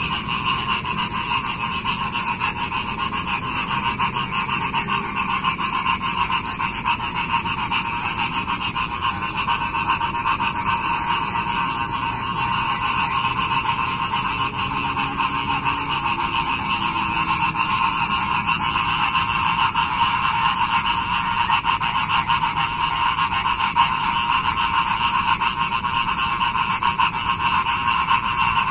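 Dense chorus of many frogs calling together after rain: a continuous, even din of rapid pulsing calls, with a thin steady high whine above it.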